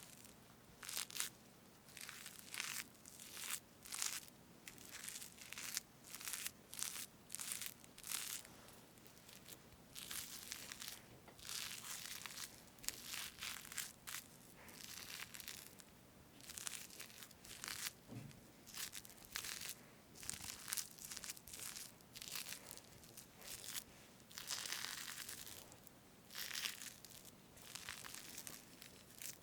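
Close-miked whipped cream on a strawberry cake being parted and scooped: a run of soft, squishy swishes, about one or two a second, with one longer drawn-out stroke near the end.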